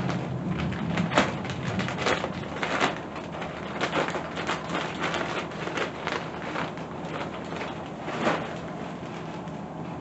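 Plastic mailer bag rustling and crinkling as it is handled, in irregular crackles that thin out near the end.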